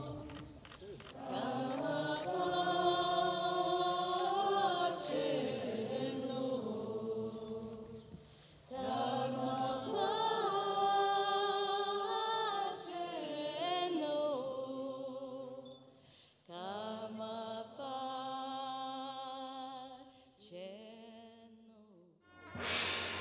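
Voices singing a chant in long, wavering melodic phrases with short breaks between them. Near the end, louder music cuts in abruptly.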